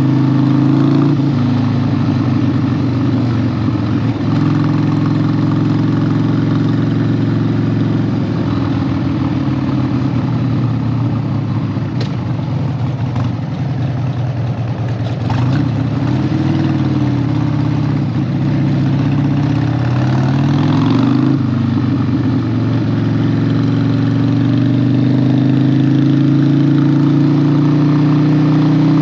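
Harley-Davidson 1200's V-twin engine running under way, its pitch dropping and rising with throttle and gear changes, then climbing steadily over the last several seconds as it accelerates.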